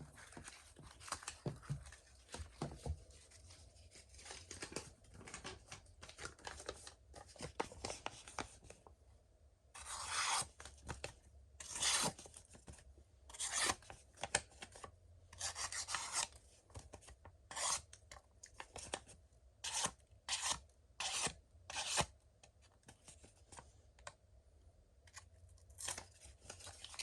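Hogue Deka folding knife's CPM 20CV steel wharncliffe blade slicing through paper, a run of short rasping cuts. The strokes grow louder and more distinct about a third of the way in.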